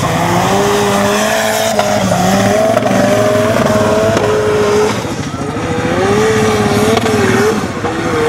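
Formula Offroad hillclimb buggy's engine running hard at high revs, its pitch wavering up and down as the throttle is worked while the wheels spin up a steep sand slope. The revs drop briefly about five seconds in and again shortly before the end.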